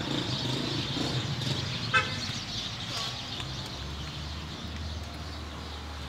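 Low steady rumble of a motor vehicle's engine, with a brief high toot about two seconds in.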